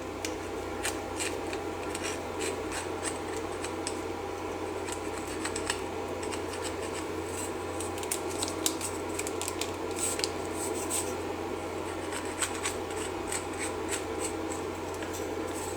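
Cables being pushed through a 3D-printed Loc-Line segmented plastic hose: many small irregular clicks and scratches of wire rubbing on the plastic segments, over a steady low hum.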